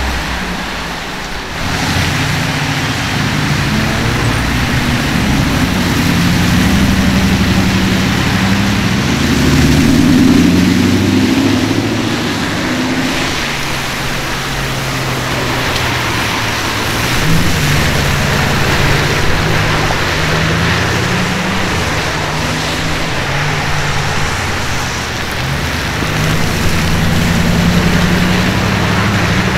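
Supercar engine running past, its pitch stepping up and down as it revs, over a steady hiss of wet road spray and rain.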